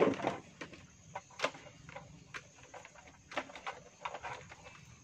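Scattered light clicks and rustles of a net-covered crab trap being handled, with a mud crab inside.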